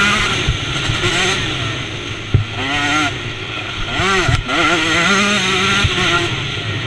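KTM 125 two-stroke motocross engine at race pace, revving up and dropping off again and again as the rider works the throttle and gears. A couple of sharp knocks cut through, the clearest about two and a half seconds in.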